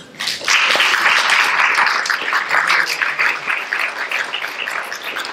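Audience applauding. It starts about half a second in and slowly thins out toward the end.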